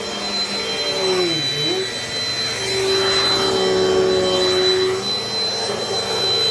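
Dirt Devil Dynamite Plus vacuum cleaner running over carpet, its motor whining. The pitch sags and recovers about one and a half seconds in, then the whine steadies and grows louder.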